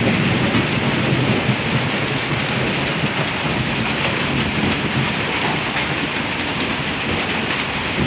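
Heavy rain falling steadily on a corrugated zinc roof, a dense, even hiss with no breaks.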